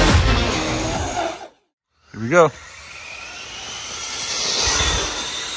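Backing music stops about a second and a half in. After a shout of "Go", an electric RC car's motor whines up, rising in pitch and growing louder.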